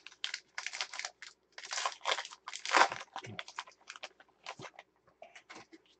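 Foil wrapper of a 2016 Gypsy Queen baseball card pack being torn open and crinkled by hand. It is a run of irregular crackles and rips, loudest about three seconds in, thinning out over the last two seconds.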